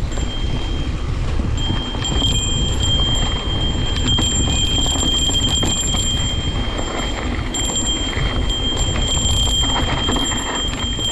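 Wind buffeting the microphone while riding, a dense low rumble, with a steady high-pitched squeal over it that breaks off briefly twice.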